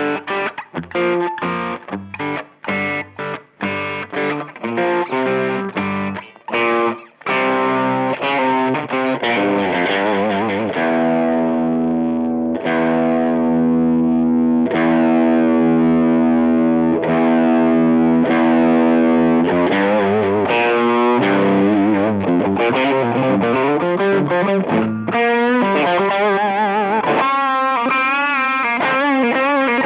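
Electric guitar played through a Chevtone Messiah Drive overdrive pedal, giving a distorted British amp-style tone. It opens with short choppy chords, then moves to sustained ringing chords with one chord held for several seconds around the middle. Near the end come lead notes with wide vibrato.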